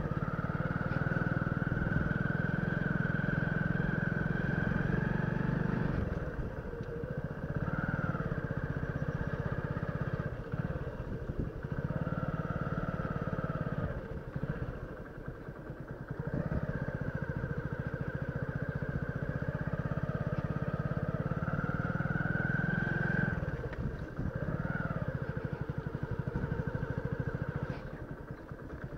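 Motorcycle engine running as it is ridden at low speed, its note rising and easing off with the throttle, dropping back briefly about six seconds in and again around fifteen seconds in.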